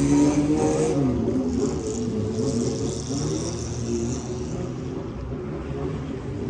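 A motor vehicle passing by on a city street, its engine and tyre noise loudest at first and fading as it moves away.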